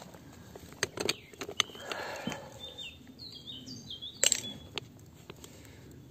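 Scraping, rustling and sharp knocks of gloved hands and a hand tool digging through soil and leaf litter, the loudest knock a little after four seconds in. A bird chirps a few short high notes in the background around three to four seconds in.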